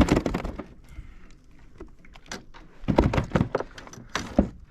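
Knocks, clunks and rattles of fishing gear being handled on a plastic kayak, in three bursts: at the start, about three seconds in, and shortly before the end.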